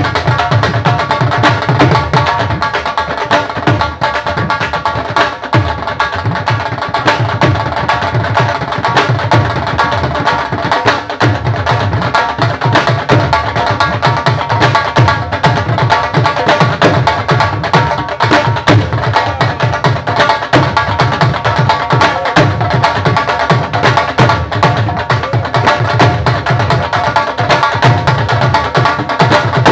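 Punjabi dhol drums beaten with sticks in a fast, continuous rhythm, together with a pair of metal-shelled drums, with a steady ringing tone over the drumming.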